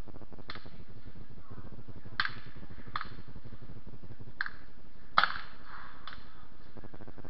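Distant black-powder gunshots: about six sharp, irregularly spaced shots, each with a short echo, the loudest a quick pair about five seconds in, over a steady low hum.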